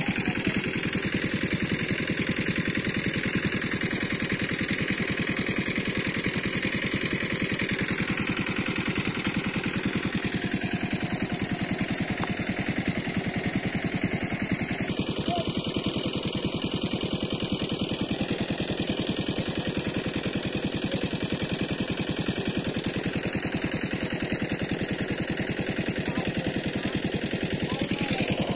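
An engine running steadily at an even speed, with a fast, regular beat.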